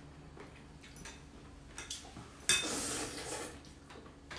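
Noodle soup being slurped: a sudden sucking hiss about two and a half seconds in that lasts about a second, with a few light clicks of a spoon and chopsticks against bowls before it.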